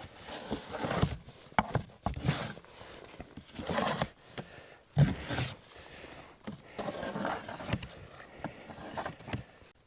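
Wooden cabin wall panel being handled and slid into place: irregular scraping and rubbing of wood on wood with several sharp knocks.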